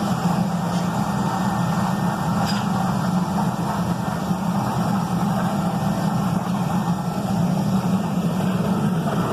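Forklift engine running at a steady idle, a constant low hum.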